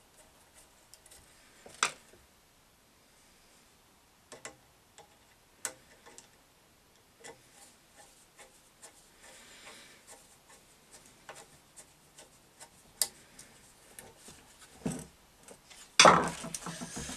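Scattered light clicks, taps and short scrapes of a screwdriver and small metal parts as a cover plate is screwed back onto a bench grinder's base. Near the end comes a much louder scraping knock as the heavy grinder is moved on the workbench.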